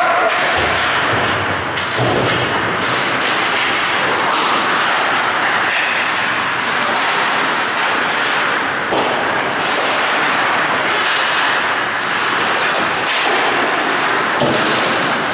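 Ice hockey play: a steady scraping hiss of skates on the ice, broken by several sharp knocks of sticks, puck and players against the boards.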